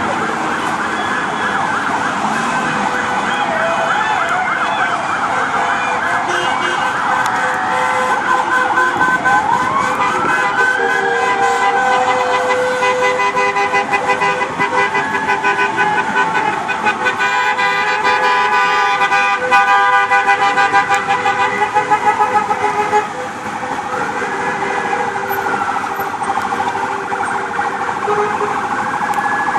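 Several sirens on parade vehicles sounding at once, overlapping wails slowly rising and falling in pitch over steady tones. A louder fast-pulsing siren joins about 19 seconds in and cuts off suddenly about 4 seconds later.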